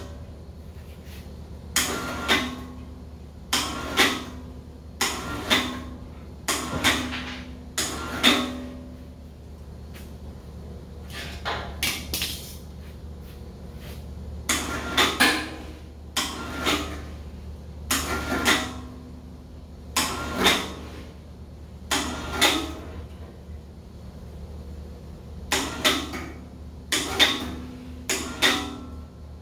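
Electric chain hoist jogged in short bursts: over a dozen brief runs of its motor, each starting and stopping within about half a second, as it turns a heavy steel smoker tank. A steady low hum lies underneath.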